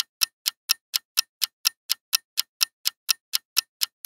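Quiz countdown timer sound effect: a clock-like ticking, about four sharp ticks a second.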